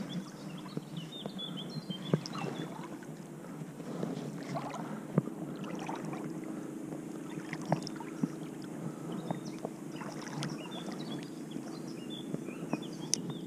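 River water running steadily, with scattered small clicks and knocks.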